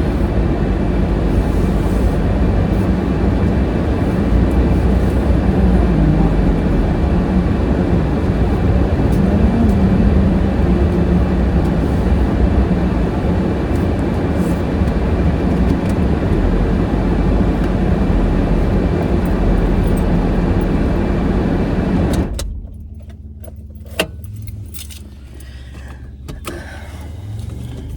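Car heard from inside the cabin: a steady engine and road rumble that cuts off suddenly about 22 seconds in, followed by quiet and a single sharp click a couple of seconds later.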